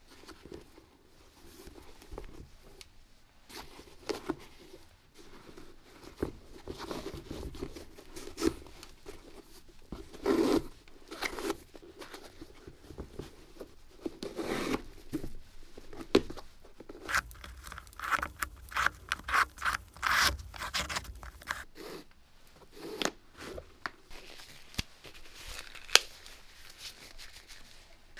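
Sneakers being worked on by hand: irregular rubbing and scraping strokes, with a quick run of short strokes about two-thirds of the way through.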